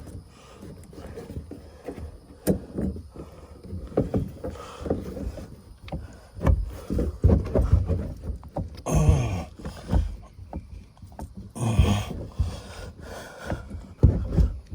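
Irregular knocks, thumps and scrapes as a fuel hose is wrestled onto a fuel tank inside a fibreglass boat hull, the hose being wiggled to force it on.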